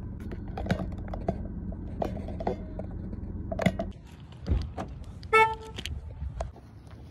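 Clicks and knocks of handling over a low steady hum inside a parked car. Then a single short car-horn beep of about a third of a second, with a low thump just before it.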